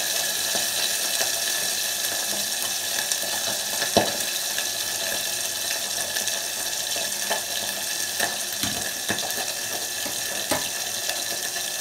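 Pabda fish frying in hot mustard oil in a steel kadai covered with a steel plate lid: a steady sizzling hiss with scattered pops and spits, a sharper pop about four seconds in.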